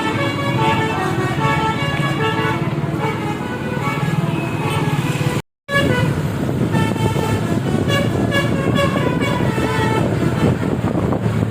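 A bus's telolet multi-tone air horn plays a melody of short, quick notes over the low running of the bus engine. The audio cuts out briefly about halfway through, and the horn tune goes on after the gap.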